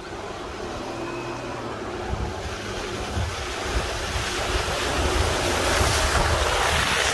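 Nissan truck driving through a muddy puddle, its tyres churning and splashing mud and water, growing louder toward the end as it comes close.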